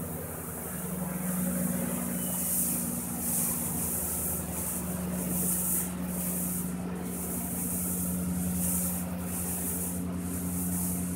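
Vacuum train's suction hose drawing water and muck out of a subway track drain: a steady low machine drone under a hiss that surges and fades about once a second as the intake takes in slugs of debris.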